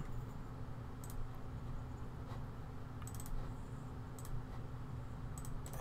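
A few scattered, light clicks of a computer mouse over a faint steady room hum, as count points are placed on a drawing in takeoff software.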